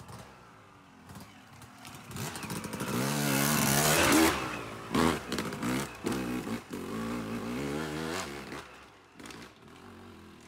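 Yamaha YZ250 two-stroke dirt bike engine riding past: it grows louder to a peak about four seconds in, then revs up and down with throttle changes as the bike climbs away, fading near the end.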